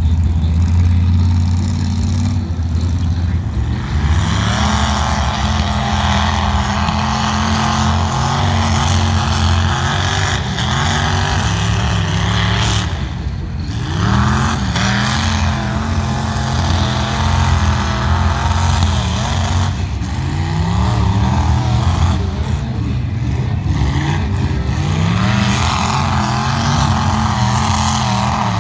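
Mud-bogging truck engine revving hard. Its pitch climbs and levels off again and again, about five times, with a steady rushing noise over it.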